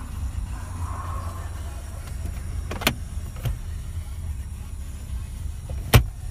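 Kia Soul's engine idling, a steady low rumble heard from inside the cabin. Two clicks a little under three seconds in as the glove box is handled, and a sharper, louder click near the end.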